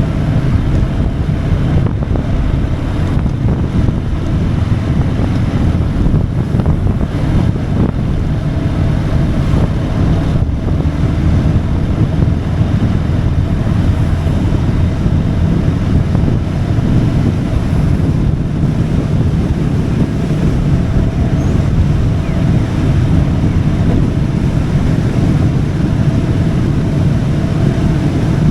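Steady wind rush on the microphone of a motorcycle under way, with the engine running evenly underneath at a constant speed.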